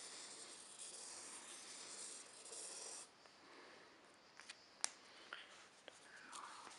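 Pen tip scratching on newsprint as it draws a circle, stopping abruptly about three seconds in. A few small sharp clicks and taps follow, one louder than the rest.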